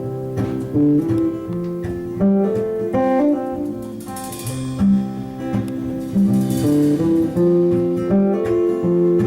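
Acoustic guitar playing the instrumental opening of a folk-rock song, a mix of picked notes and strummed chords that change every second or so.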